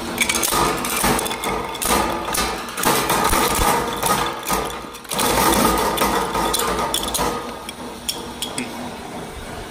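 Homemade plastic shredder, driven by a 1 HP three-phase motor through a 20:1 gearbox, with its steel cutter blades turning and chewing a failed 3D print. Irregular clattering and cracking of the plastic against the blades runs over a steady drone, with a brief lull about five seconds in.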